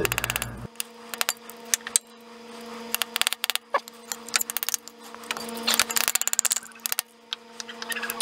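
Sharp metallic clicks and clinks in quick clusters: hand tools picking and tapping at the crankshaft key on a GM 3400 V6 to work it out. A steady low hum runs underneath from about a second in.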